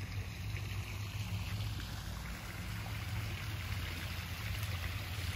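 Water trickling and splashing steadily in a backyard koi pond, over a low steady hum.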